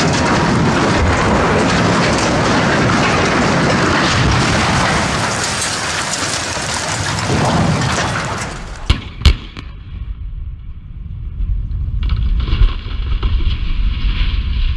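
A 400-foot steel smokestack crashes to the ground close by in a long, loud rumbling crash, with debris pattering down and splashing into puddles. About nine seconds in there are two sharp cracks, then a low rumble builds toward the end.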